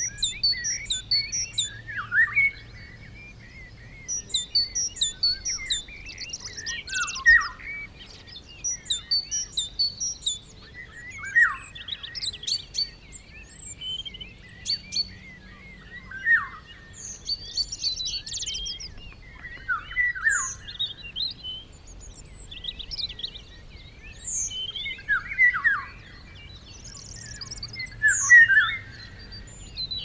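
Several songbirds singing in spring woodland, their songs overlapping. One repeats quick series of high chirps in short phrases every few seconds, while others give lower, warbling phrases in between.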